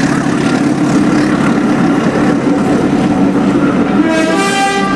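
Railway locomotive running steadily, with a single short toot just under a second long about four seconds in.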